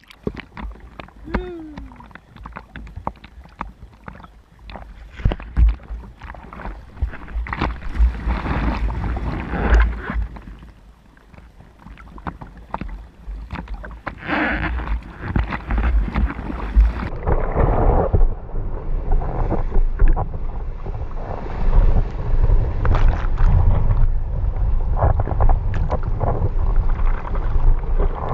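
Sea water splashing and sloshing against a bodyboard and its camera at the surface during paddling, with wind buffeting the microphone. It gets louder and steadier from about halfway through as choppy whitewater rushes past.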